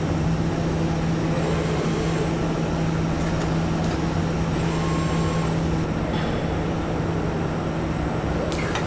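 Steady hum and whir of automated assembly-line machinery in a factory hall, with a constant low drone and a few faint clicks near the end.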